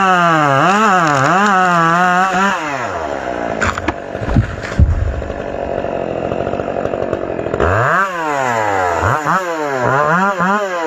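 Chainsaw engine running at high speed with a wavering pitch, dropping to a low, slow run about two and a half seconds in with a couple of loud knocks, then revved up and down several times from about eight seconds.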